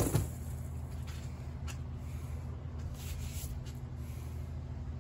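A steady low machine hum, with one sharp knock right at the start.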